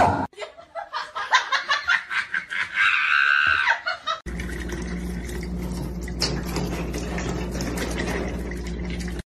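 A person laughing in short bursts, then, from about four seconds in, a countertop water dispenser running with a steady hum and the hiss of its stream pouring into a glass.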